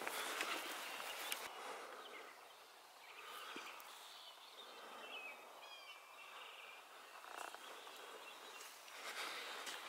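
Footsteps swishing through grass, loudest in the first second and a half and again near the end, with a small bird singing faintly in the quieter middle stretch.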